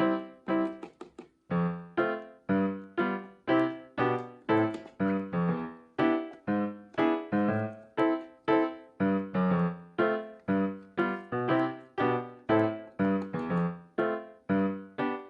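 Background music: a piano-like keyboard playing a steady run of notes, about two a second, each note dying away, with a brief gap broken by a few faint clicks about a second in.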